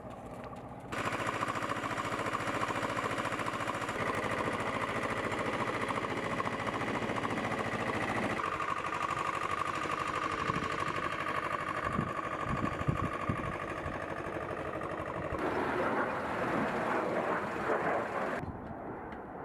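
Jet aircraft engines running with a steady high whine, cutting between several shots, with a few low thumps about halfway through.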